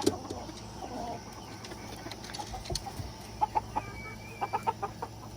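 Silkie chickens clucking in short, scattered clucks, with a quick run of clucks about three and a half seconds in.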